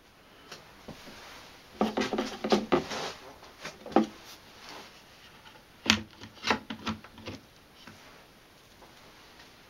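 Wooden knocks and rubbing as a wooden sanding disc with a black face is handled and set down onto the wooden base of a home-made disc sander, fitted over its bearing hub. The knocks come in two clusters, with a single knock between them.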